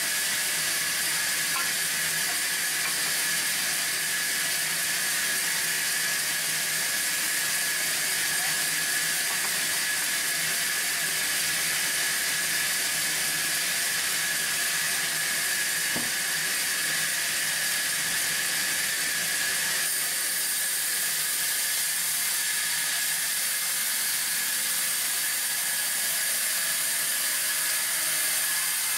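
Band saw running and cutting through a timber plank as it is pushed along the blade: a steady hiss with a thin, steady whine over it.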